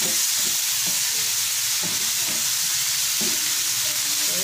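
Cut green beans sizzling in a frying pan with a steady hiss, while a wooden spatula stirs and scrapes them in irregular strokes.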